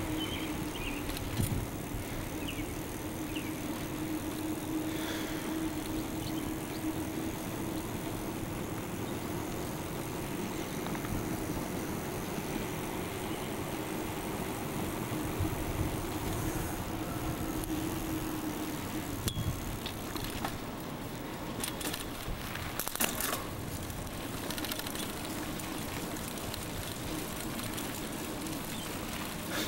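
Bicycle riding over pavement: steady rolling and rattling noise with a low hum that fades out after about eighteen seconds, then a run of clicks and rattles a few seconds later.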